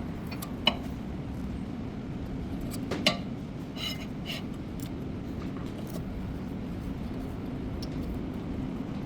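Light metallic clinks and two sharp knocks, one near the start and one about three seconds in, over a steady low hum.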